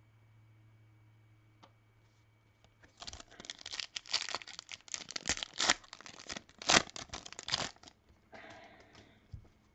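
A pack wrapper of Topps Finest baseball cards being torn open and crinkled: dense crackling starting about three seconds in and lasting about five seconds, then a softer rustle and a click near the end.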